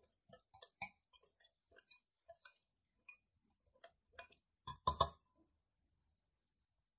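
Small metal wire whisk tapping and clinking against a glass bowl as it stirs a thick, wet mixture: irregular quick clicks, the loudest cluster about five seconds in, then it stops.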